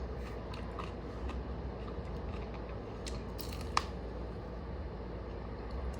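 A person eating quietly: soft chewing and small clicks, with one sharper click just under four seconds in.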